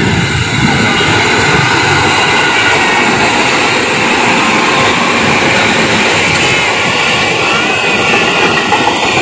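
JR 205 series electric commuter train passing at close range: a steady rolling noise of wheels on rails with thin high tones over it.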